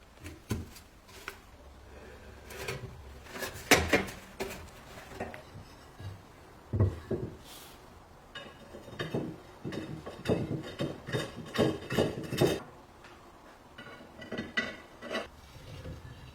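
Hard parts being handled, set down and knocked together in irregular clicks and knocks, with a denser stretch of rubbing and clattering about halfway through.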